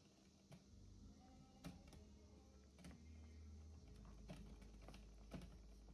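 Faint, scattered knocks of a wooden spoon against the pan while stirring a stew, over a low hum.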